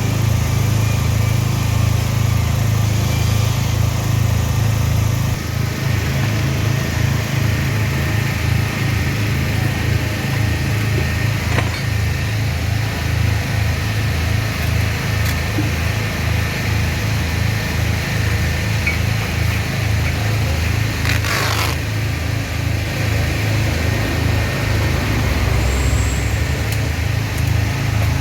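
An engine running steadily with a low throb that turns uneven, pulsing about five seconds in. A short hiss comes about twenty-one seconds in.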